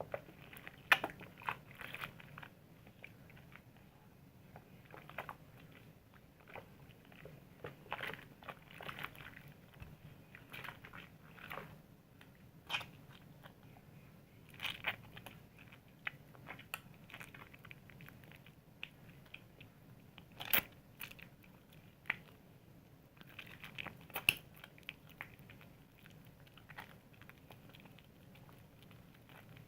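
Soap being lathered: irregular wet squishes and crunchy crackles, some louder than others, at an uneven pace.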